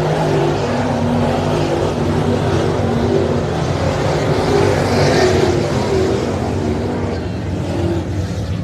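A pack of dirt late model race cars running sealed Chevrolet 604 small-block V8 crate engines, racing around a dirt oval; several engines overlap, their pitch rising and falling as the cars come off and into the turns.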